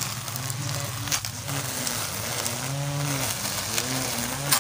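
Cordless electric grass trimmer with plastic blades cutting grass: its motor hum rises and falls in pitch several times as it works through the grass, with scattered sharp ticks, the loudest near the end.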